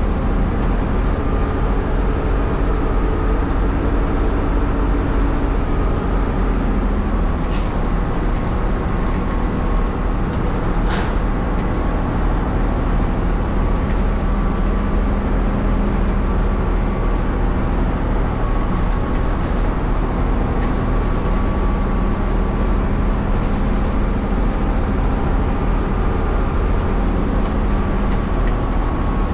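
Leyland 680 diesel engine of a Leyland Leopard city bus running steadily under way. A faint click comes about seven and a half seconds in and a sharper click about eleven seconds in.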